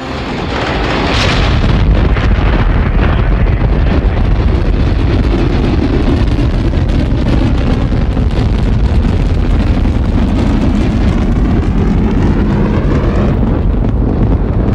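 Space shuttle launch sound effect: the continuous rumbling noise of rocket engines at lift-off, building over the first two seconds and then holding steady and loud, heaviest in the deep low end.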